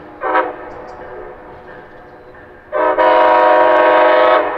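Amtrak Siemens Charger diesel locomotive's air horn: a short blast, then a long steady blast of about a second and a half, sounded as the train reaches a road grade crossing.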